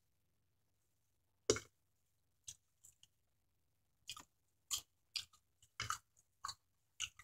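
A person chewing food close to the microphone: faint, short mouth clicks, one about a second and a half in, then a scattered run of them from about four seconds on.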